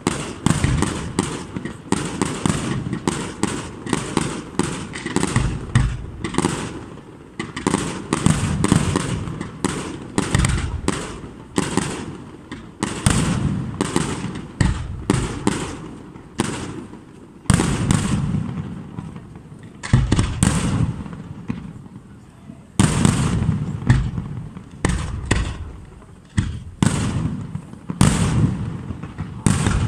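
Aerial firework shells bursting one after another in a sustained barrage, often several bangs a second, each followed by a rumbling echo.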